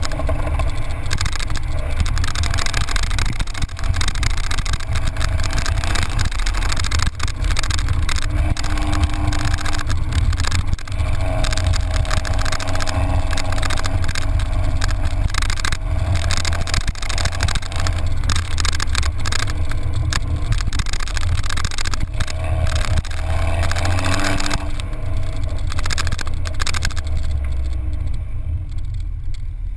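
Exhaust note of a MINI Cooper R56 through its John Cooper Works exhaust, taken close to the twin tailpipes while driving: a deep steady drone under heavy wind rush. The engine note rises a few times under throttle and fades away over the last few seconds.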